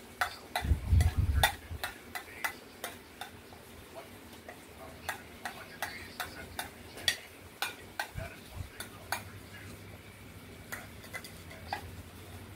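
Plastic spoon tapping and scraping against a plate in quick, irregular clicks, with a brief low rumble about a second in.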